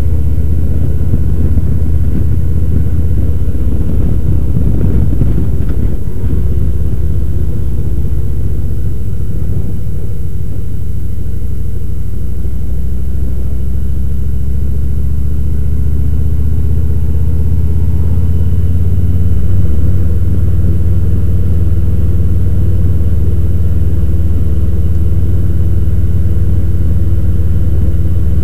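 Harley-Davidson motorcycle's V-twin engine running steadily at road speed, with wind and road noise, heard from on the bike.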